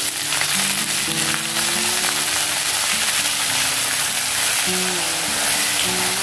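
Chopped fenugreek leaves sizzling in hot oil in a steel kadhai as a wooden spatula stirs them. Background music with held notes runs underneath.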